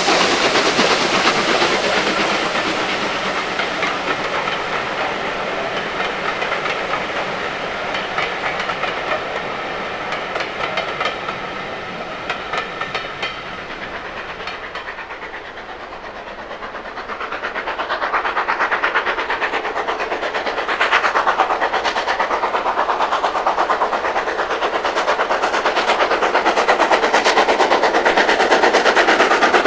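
Steam-hauled train running on the line: its sound fades to its quietest about halfway through, then builds again to its loudest near the end, with a fast, even clatter of wheels or exhaust beats and some hiss of steam.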